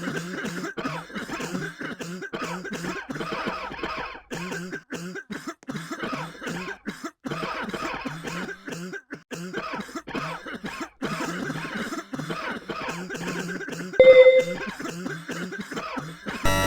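A person coughing over and over in rapid, irregular fits. A brief loud steady tone cuts in about 14 seconds in.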